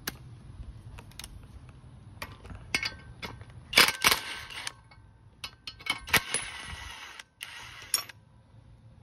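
Metal hand tools and parts clinking and clanking while a flywheel holding tool is taken off an engine, with sharp louder metallic clanks about four seconds and six seconds in.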